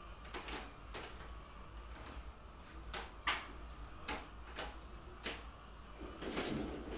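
Scattered short sharp clicks and knocks, about eight at irregular intervals and the loudest about three seconds in, over a steady low hum.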